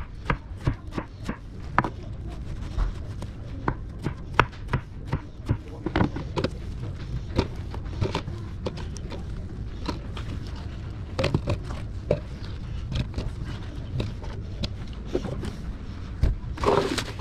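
Chef's knife chopping watermelon on a plastic cutting board: irregular sharp knocks of the blade striking the board, over a steady low hum. A short scuffling noise comes near the end.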